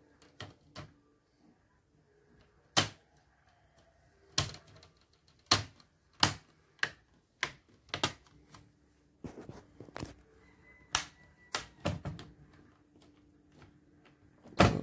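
Plastic screen bezel of an Acer Aspire 5349 laptop being pressed onto the lid, its clips snapping into place in a dozen or so sharp clicks, irregularly spaced.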